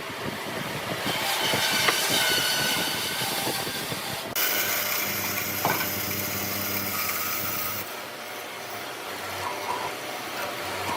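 Woodworking tool noise on wood: rapid rasping strokes for about four seconds, then an abrupt change to a steady electric power tool hum with a high hiss that eases off near the end.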